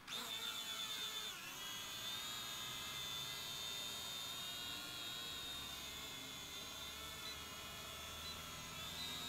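Cheap toy quadcopter drone's motors and propellers whining as it lifts off and flies. The high whine starts suddenly, wavers in pitch for about the first second, then holds steady.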